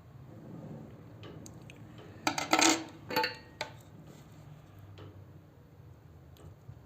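Small metal tools clinking and clattering on a work surface during soldering work: a few light ticks, then a burst of sharp clinks about two to three and a half seconds in, and a couple of faint ticks near the end.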